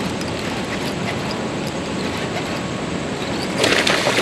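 Steady rush of creek water, with a burst of splashing near the end from a big hooked bass fighting at the surface.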